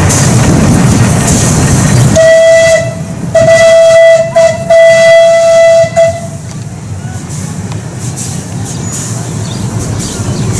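Single-note steam whistle of a Cagney 15-inch-gauge miniature steam locomotive. It starts about two seconds in with a short toot, followed by two longer blasts with brief breaks, and stops about six seconds in. A loud, steady rushing noise comes before the whistle.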